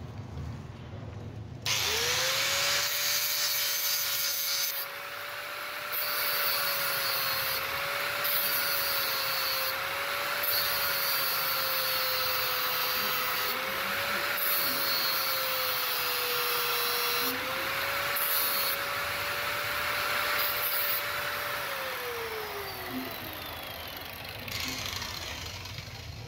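Angle grinder spinning up and cutting the iron rear shaft of a hammer-drill armature in several passes, its motor whine dipping in pitch under load, with loud gritty cutting noise. Near the end it is switched off and winds down with a falling whine.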